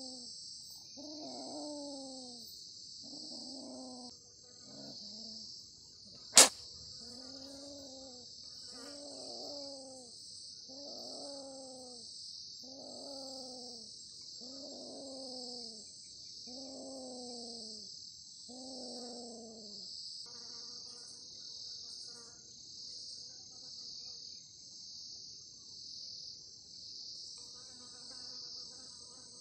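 Crickets trilling steadily in a high, pulsing chorus. Over the first two-thirds, a low pitched animal call repeats about once a second, about a dozen times. One sharp click about six seconds in is the loudest sound.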